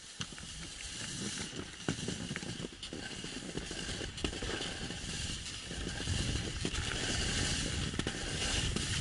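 Sliding over snow on a descent: a steady hiss of the base running on snow with small scrapes and crunches, and wind rumbling on the helmet-mounted camera, growing louder as speed picks up.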